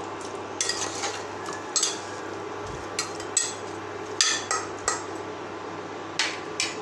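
Metal spoon stirring chopped vegetables in water inside a pressure cooker, with sharp knocks as it hits the pot's metal sides every half second to a second.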